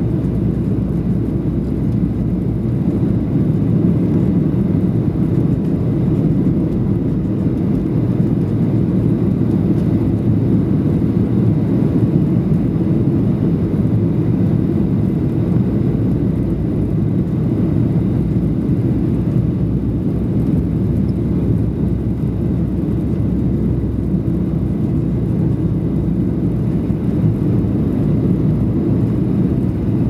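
Steady cabin noise of a Boeing 737-800 in flight, heard from inside the cabin: the low, even rumble of its CFM56 turbofan engines and the airflow over the fuselage, unchanging throughout.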